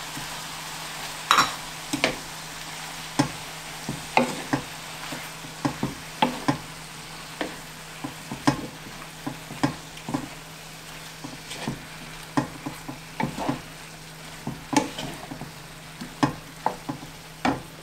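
Wooden spoon stirring chicken and vegetables frying in a stone-coated sauté pan: irregular knocks and scrapes of the spoon against the pan, one or two a second, over a steady sizzle.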